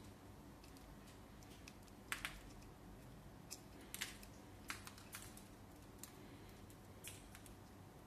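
Cockatiel feeding inside a clear plastic cage feeder: its beak picks at and cracks seed, giving sharp, irregular clicks, the loudest a close pair about two seconds in.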